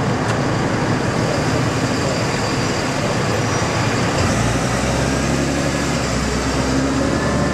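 Steady road traffic noise. A low engine hum joins about halfway through.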